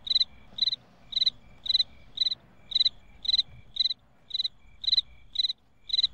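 Cricket chirping sound effect: short, evenly spaced chirps, about two a second, the stock cue for an awkward silence.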